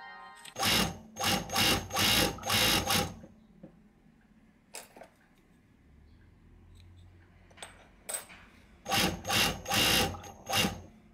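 DCR942 industrial overlock machine stitching the edge of knitted fabric. It runs in short bursts of about half a second, four in quick succession early on and four more near the end, with a couple of sharp clicks in the pause between.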